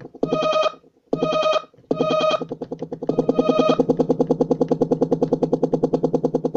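A Kawai MS710 personal keyboard sounds a buzzy electronic tone with a fast, even stutter running through it. It plays three short notes with gaps between them, then a longer note held from about three seconds in.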